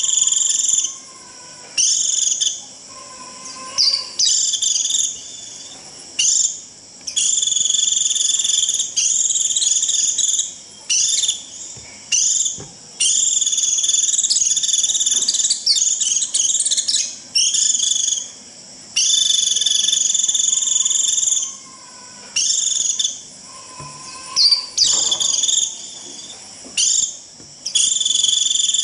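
White-eye (vành khuyên) giving its shrill, buzzing 'rít' flock-gathering call in high bursts of one to three seconds, repeated with short pauses. A few faint, lower whistled notes come in between.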